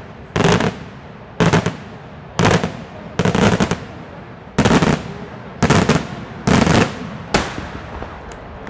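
Daytime aerial fireworks shells bursting in a steady run, about one loud bang a second, eight in all, each a quick cluster of cracks, with echo rolling between them.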